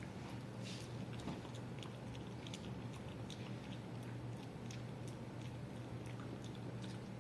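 Jindo dog chewing a piece of jerky: a run of small irregular wet clicks and smacks of teeth and tongue.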